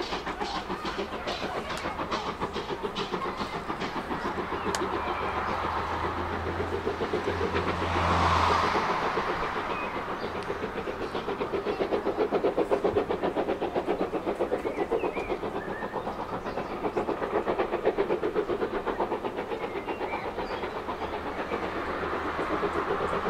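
Ivatt Class 2MT steam locomotive hauling its train away, its exhaust beating in an even rhythm of about three chuffs a second, with the carriage wheels running over the rails. The sound swells briefly about eight seconds in.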